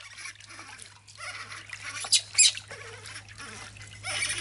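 Water sloshing and splashing in a plastic basin as a baby monkey is washed by hand, with two short sharp sounds a little after two seconds in.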